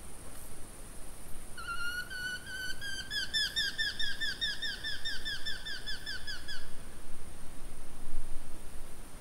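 A bird's call, thought to be a Eurasian hobby: a rising note that breaks into a fast run of sharp, repeated 'kew' notes, about five a second, lasting some five seconds from about one and a half seconds in.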